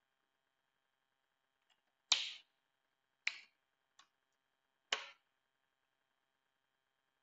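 Four sharp clicks or taps, unevenly spaced over about three seconds, the third much fainter than the others, over a faint steady hum.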